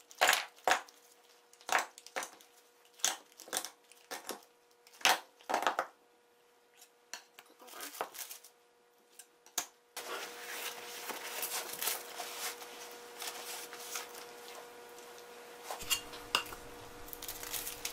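Steel spring clamps being squeezed open and pulled off a glued wooden disc: a quick series of sharp metallic clacks. From about ten seconds in, wax paper and paper towel rustle and crinkle as the disc is handled and wiped.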